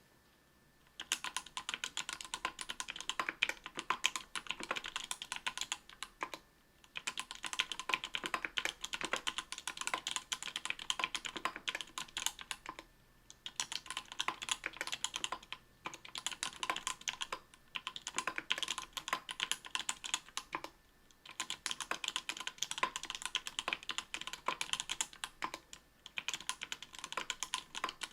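Typing on an Octagon V3 mechanical keyboard with Everglide Coral Red 67g linear switches lubed with Krytox 105, an aluminium plate and GMK Jamon keycaps. Fast runs of keystrokes start about a second in, broken by several short pauses.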